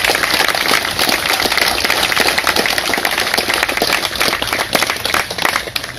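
A large crowd applauding: many hands clapping at once in a dense, continuous patter.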